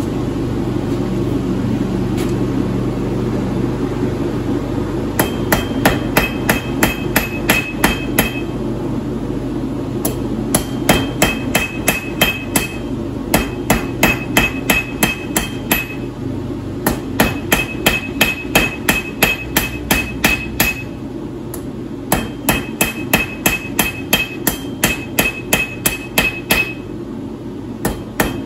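Hand hammer striking a red-hot steel bar on an anvil, with a bright ring on each blow, in runs of about three strikes a second broken by short pauses. The hammering starts about five seconds in, over a steady low rumble.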